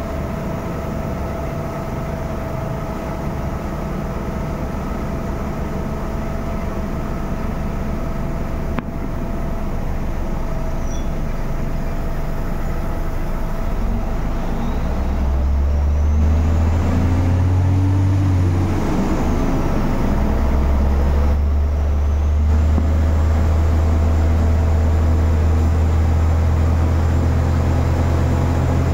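Drilling rig machinery running steadily, a constant mechanical din with a steady hum. About halfway through a deep drone sets in and the noise grows louder.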